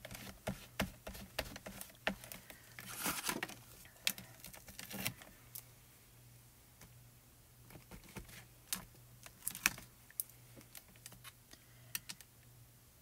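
Hands handling clear acrylic stamps on a plastic stamping platform: irregular clicks and taps of fingernails and stamps against plastic, with brief crinkly rustles of the stamp's plastic carrier sheet between about three and five seconds in.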